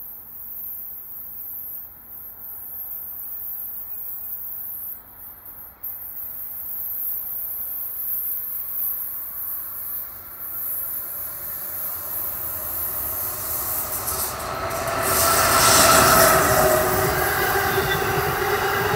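Amtrak Northeast Regional passenger train approaching and passing, building from a faint rumble to loudest about 16 seconds in as the head end goes by, then the steady rolling noise of its passenger cars.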